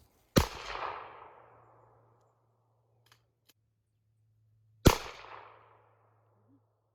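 Two loud, sharp bangs about four and a half seconds apart, each trailing off in an echo that fades over about a second and a half.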